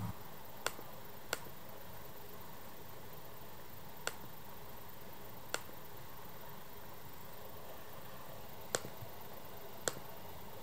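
Computer mouse clicking: six single sharp clicks, a second or more apart, over a steady low room hiss.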